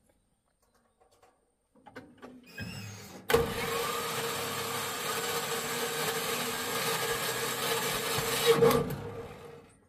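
A truck engine runs loud and steady, starting suddenly about three seconds in after a brief rising sound, then fading away near the end.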